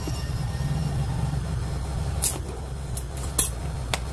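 Cardboard box being cut and worked open with scissors: a few short, sharp snips and scrapes about two seconds in and near the end, over a steady low background rumble.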